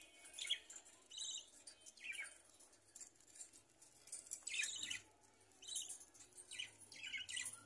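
Budgerigars chirping: short, scattered high chirps, about one every second, with a brief lull in the middle.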